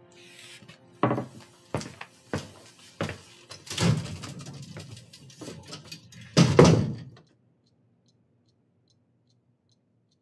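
A run of heavy thumps and bangs, the loudest pair about six and a half seconds in, cutting off suddenly; then the faint, quick, even ticking of a wristwatch.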